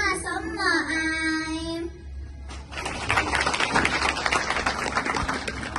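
A child sings a held, slightly wavering note that ends about two seconds in. Audience applause starts soon after.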